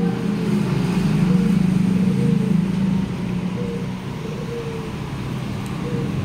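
Steady low drone of motor vehicle engines and road traffic.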